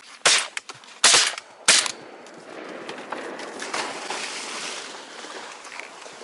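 Three shotgun shots fired in quick succession at a flying bird: the first just after the start, the second under a second later, the third about half a second after that.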